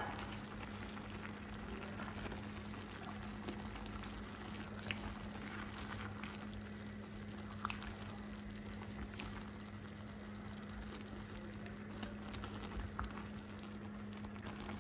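A pan of okra soup simmering on the stove: a steady faint bubbling over a low steady hum, with a few light clicks of a spatula against the pan.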